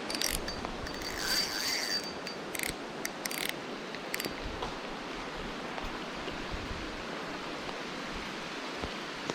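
Spinning reel being cranked, with quick ratcheting clicks in the first few seconds as a hooked bass is played in. Under it runs a steady hiss of flowing river water.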